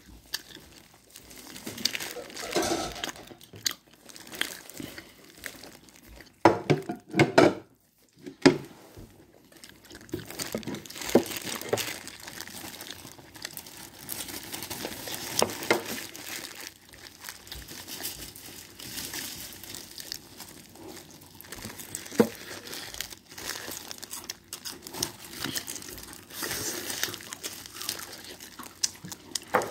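Disposable plastic glove crinkling and rustling as a fried chicken drumstick is handled close to the microphone, with crunching bites and chewing of the crispy coating. A few louder crinkles and crunches come about six to eight seconds in.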